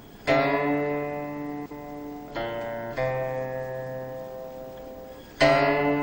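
Background music: a slow melody on a plucked string instrument, a few notes each left to ring and fade away.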